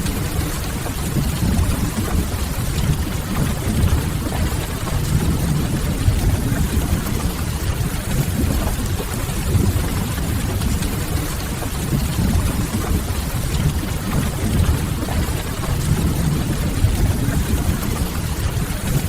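Rain-and-fireplace ambience mix: a steady rain hiss over a deep, even low rumble.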